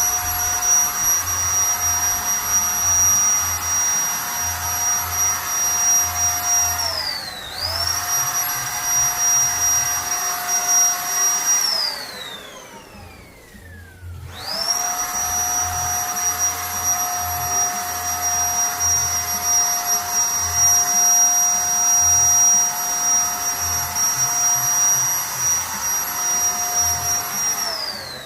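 Zipper electric paint spray gun's motor running with a steady high whine. Its pitch dips briefly about a third of the way in; it winds down and stops, then about two seconds later spins back up and runs steadily again, dipping once more at the end.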